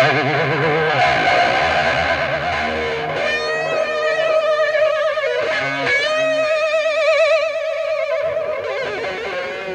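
Effects-laden electric guitar, part of a 1970s heavy metal recording, holding long notes whose pitch wavers with a wide, fast vibrato over low bass notes, growing quieter toward the end.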